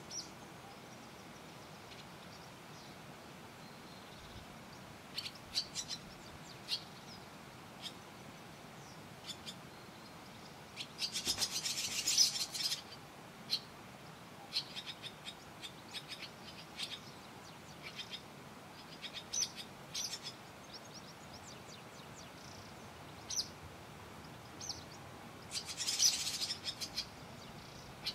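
Barn swallow nestlings calling from their mud nest. Scattered short, high chirps, with two longer bursts of rapid chirping, one about eleven seconds in and one near the end.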